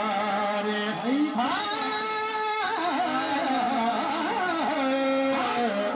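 A man's voice singing a Punjabi naat through a microphone, drawing out long held notes with ornamented bends and turns in the melody.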